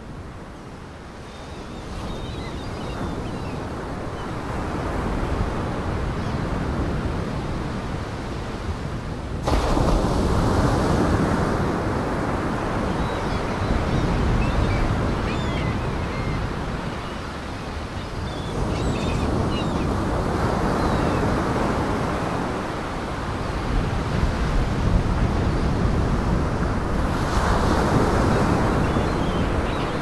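Storm surf on a large lake: waves breaking and washing in as a continuous rush that swells and eases every several seconds, stepping up in loudness about nine seconds in.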